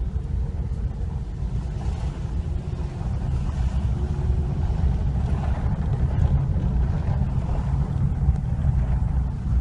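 Low rumble of a car driving slowly, heard from inside the cabin, with wind noise on the microphone.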